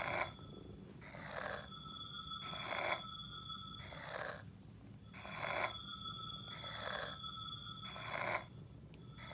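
A person breathing heavily and rhythmically, an in- or out-breath about every second and a half.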